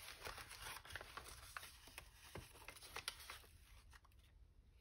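Faint rustling and light ticks of paper scraps being handled, settling down near the end.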